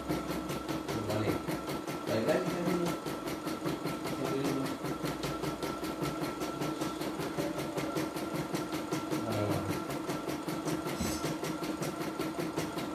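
CNY E960 computerised embroidery machine stitching a design, its needle clicking in a fast, even rhythm over a steady motor whine.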